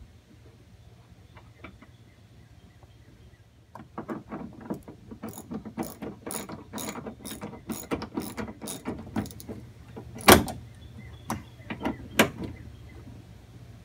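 Socket ratchet on an extension clicking as it runs in the mounting bolt of a hatch lift support, starting about four seconds in at roughly four clicks a second, then a few louder separate clicks near the end.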